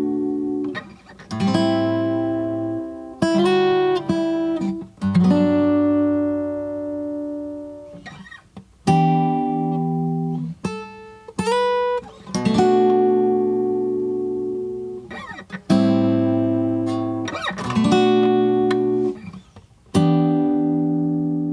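Solo guitar playing slow chords with no voice: about a dozen chords, each struck and left to ring and fade before the next.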